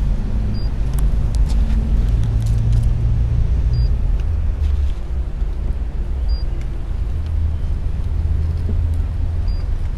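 Steady low rumble of outdoor background noise, with no clear events.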